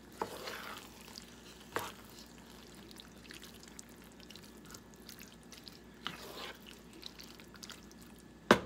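Wooden spatula stirring a thick ground-beef, potato and pea stew in a deep nonstick pan: soft wet scraping and squelching, with a few sharp knocks of the spatula against the pan, the loudest near the end.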